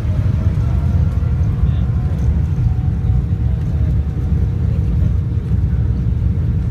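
Steady low rumble inside the cabin of a Boeing 787 Dreamliner as it moves along the ground, from the engines and the wheels rolling on the pavement, with a few faint steady tones above it.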